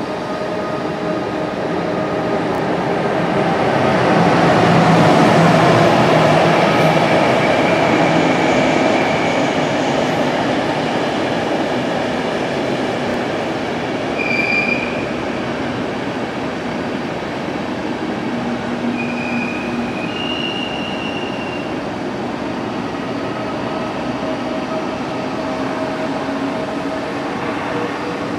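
DB ICE train pulling out of the station, the rumble of its wheels and running gear swelling to a peak about five seconds in and then easing. Short, high wheel squeals come in from about halfway on.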